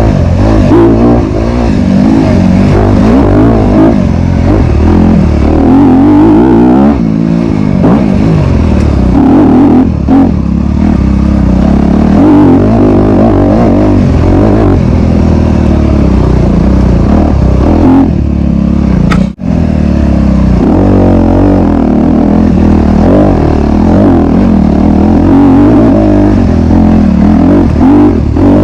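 Honda CRF250RX's single-cylinder four-stroke dirt bike engine revving up and down under race throttle, with clatter from the bike. The sound breaks off for an instant about two-thirds of the way through.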